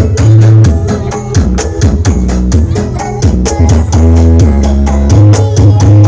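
Loud band music played through a big outdoor PA sound system: a heavy bass line of held low notes under a steady drum and percussion beat.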